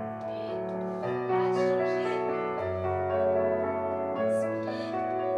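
Slow piano music, held chords changing every second or two, suited to a ballet barre exercise.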